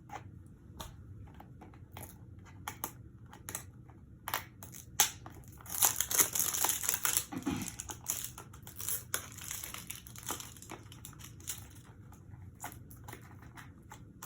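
Eyeliner packaging being handled and torn open by hand. Scattered clicks and taps give way, about halfway through, to a few seconds of crinkling and tearing, and then to more light handling clicks.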